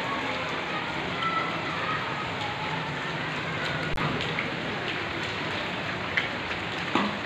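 Heavy rain falling in a steady hiss, with a few louder sharp taps, one about four seconds in and two near the end.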